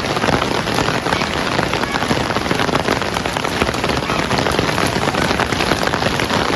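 Heavy rain falling steadily, a dense, even patter of countless drops hitting a surface.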